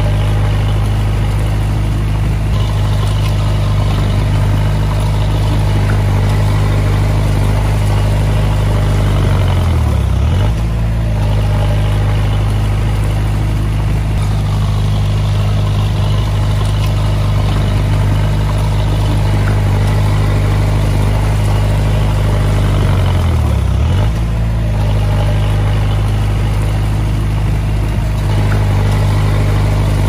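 Komatsu D20A crawler bulldozer's diesel engine running steadily under work, its pitch dipping briefly and recovering twice, about ten seconds in and again about two-thirds of the way through.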